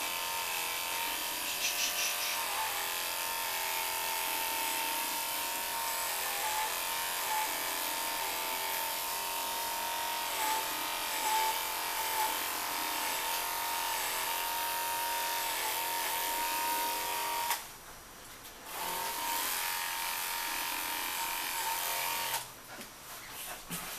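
Cordless electric dog clippers running with a steady high hum as they shave a cocker spaniel's throat and muzzle. They switch off about 17 seconds in, run again a second later, and stop for good about 22 seconds in.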